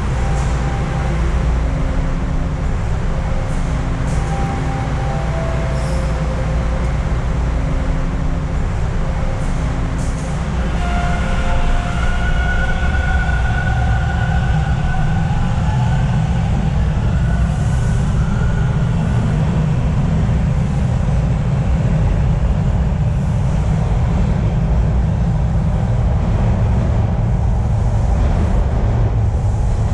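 Toronto subway train running through the station with a steady low rumble. A higher whine rises in pitch about ten seconds in and then fades.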